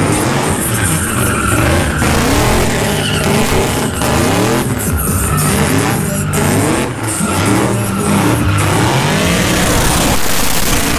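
Box-body Chevrolet Caprice doing donuts: the engine revs up and down again and again while the rear tyres spin and squeal. Music with a bass line plays underneath.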